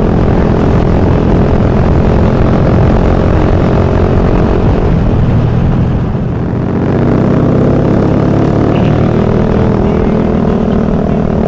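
Suzuki Satria FU's 150cc single-cylinder four-stroke engine running under way, heard with wind rush on a helmet microphone. The engine note drops off briefly about six seconds in, then picks up again.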